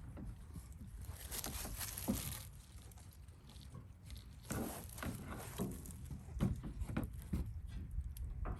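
Hand work on a truck's tow hook brackets: scattered clicks, knocks and rustling, with two longer noisy stretches about a second in and around four and a half seconds in.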